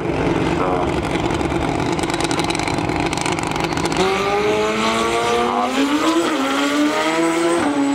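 Drag-racing motorcycle engine held at high revs on the start line, then launching about four seconds in and pulling away with a steadily rising pitch that drops briefly at two gear changes.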